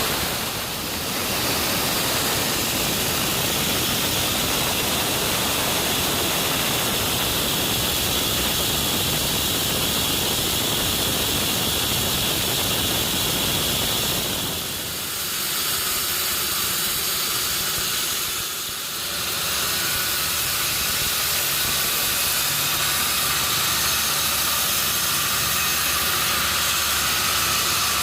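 Sawmill machinery running with a steady, loud hissing noise. Its character shifts about halfway through, turning thinner and higher, with brief dips near the start and in the middle.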